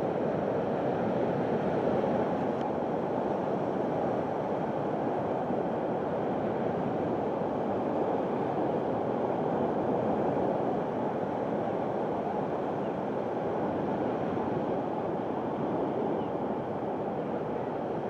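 Waves breaking and washing up a shingle beach: a steady, low wash of surf noise with no distinct bird calls standing out.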